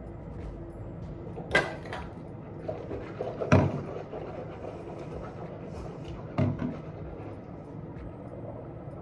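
Three short knocks and clunks, about two to three seconds apart and loudest in the middle, as a plastic mouthwash bottle is capped and set down on the counter, over a steady low background while the mouthwash is held in the mouth.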